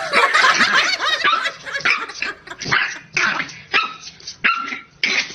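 A dog barking over and over, a dense run of calls at first, then single barks about every half second to a second.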